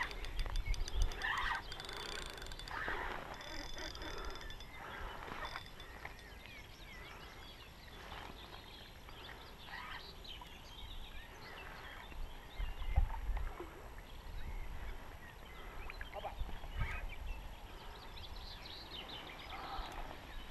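Spinning reel being wound and rod handling, with splashing as a small fish is drawn in through lily pads and grabbed by hand, birds chirping in the background.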